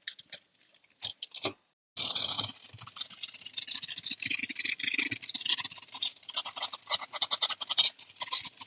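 Irregular scratching and rubbing handling noise, with a few short clicks about a second in and dense scraping from about two seconds in.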